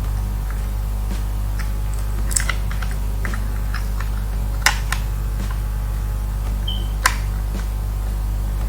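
Scattered small clicks and taps of laptop parts being handled during reassembly, a few sharp clicks a second or two apart, over a steady low electrical hum.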